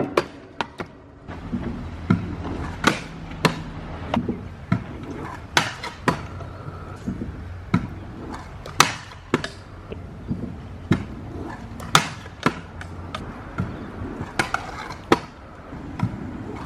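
Stunt scooter riding on skatepark concrete: a steady rolling rumble of the wheels, broken by many sharp clacks and knocks of landings and tricks, one every half second to a second or so.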